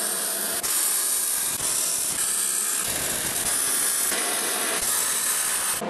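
Eastwood MIG 175 welder laying a continuous bead on 1/8-inch-wall steel square tube with C25 shielding gas: the arc gives a steady crackling hiss.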